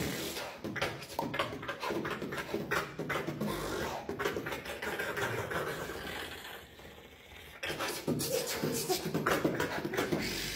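Vocal beatboxing: a dense, fast run of mouth-made kick, snare and hi-hat clicks, easing off briefly a little past the middle before picking back up.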